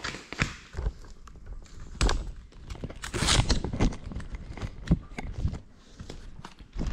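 Irregular footsteps and knocks on a tiled floor, ending with handling thumps as the crashed FPV drone is picked up; its motors are silent.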